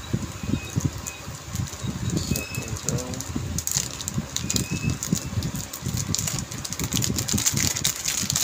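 Packaging of a YJ MGC 4x4 speedcube being handled: rustling and scattered clicks over continual low bumps of handling noise, the clicks more frequent in the second half.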